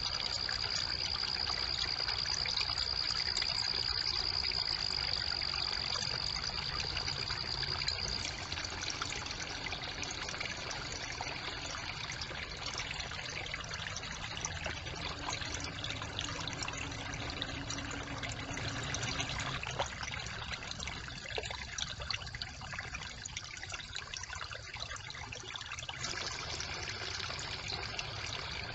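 Brook water trickling and splashing steadily through a beaver dam. A steady high-pitched tone sits over it for the first several seconds and comes back faintly near the end.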